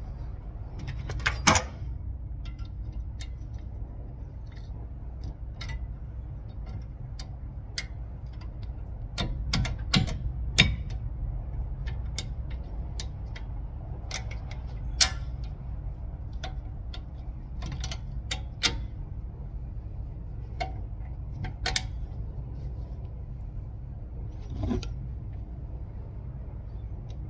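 Scattered metallic clicks and clinks of tools and parts being handled, with a few louder knocks, over a steady low hum.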